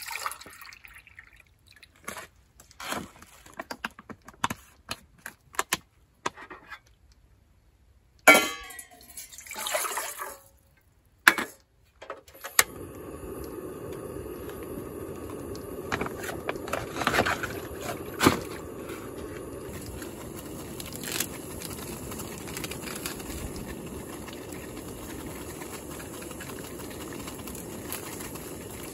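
Water poured from a bottle, handling clicks, then a couple of sharp clicks as a portable butane cassette stove is lit. From about halfway in, the stove's gas flame hisses steadily under a stainless pot of water that is heating toward the boil.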